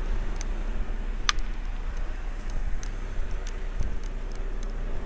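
Timber truck's diesel engine idling steadily, with a few scattered light clicks and one sharper click about a second in.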